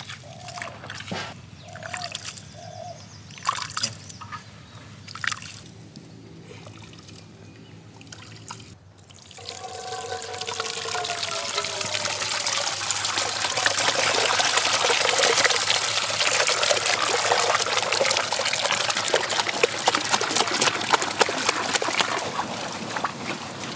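Coconut milk pouring through a cloth strainer into a steel pot: a steady splashing trickle that starts about nine seconds in and grows louder over the next few seconds. Before it there are only a few light knocks and taps.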